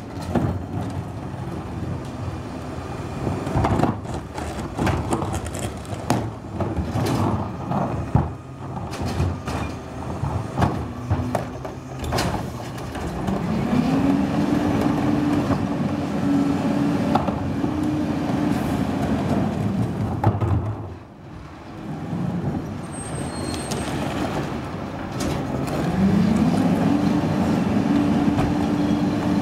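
Pakmor rear-loader garbage truck on a Crane Carrier LET2 chassis at work. Plastic carts and lids knock and clatter against the hopper and semi-automatic tipper. About halfway through, the engine revs up and holds a steady higher pitch for several seconds to drive the hydraulics, drops back, then revs up again near the end.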